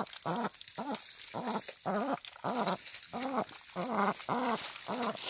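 A domestic duck giving a steady run of short, low quacks, about three a second.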